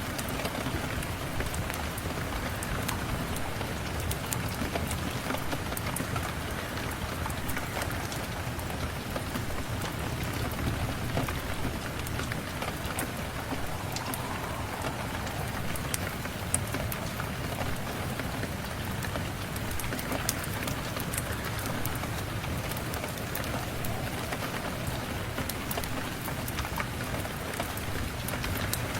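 Steady rain falling in a constant hiss, with scattered sharp little ticks throughout.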